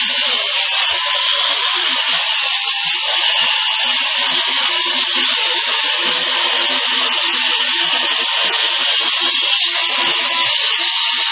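A large remote-control helicopter's electric motor and spinning rotor blades whirring steadily in flight, giving a high-pitched whine.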